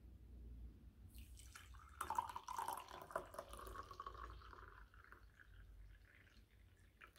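Tea poured from a glazed teapot into a cup: a stream of liquid splashing into the cup, starting about a second in and thinning to a trickle near the end.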